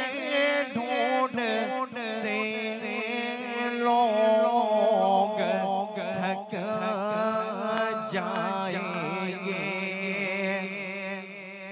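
A man singing a naat into a microphone in long, wavering, ornamented held notes, over a steady low drone.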